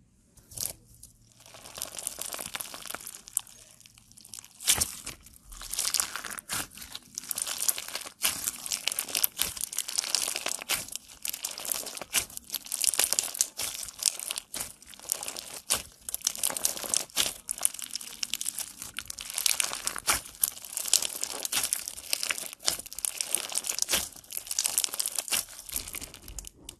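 Clear slime packed with clear and brightly coloured beads being squeezed and kneaded by hand, giving a dense crunchy crackling and clicking that comes in waves with short pauses.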